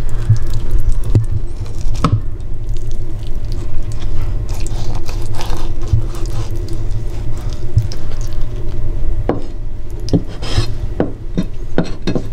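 Kitchen knife shaving the belly bones off a chub mackerel fillet on a cutting board: soft scraping with a few sharp clicks of the blade against the board, several in quick succession near the end, over a steady low hum.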